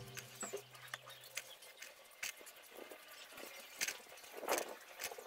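Faint, scattered light clicks and taps of thin bamboo sticks being handled and pressed onto a glued wooden frame, with a couple of slightly louder taps near the end.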